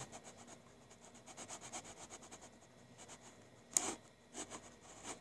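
Computer mouse rubbing back and forth across a desk in quick faint rasps, then a sharper click near four seconds in and a couple of lighter clicks after it.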